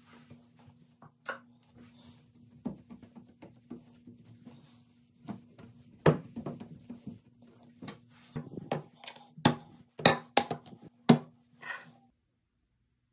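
A cloth rubbing on a bathroom mirror, with scattered sharp knocks and clicks from handling the pivoting mirror and setting things on the counter. A faint steady hum runs underneath. All sound cuts off suddenly near the end.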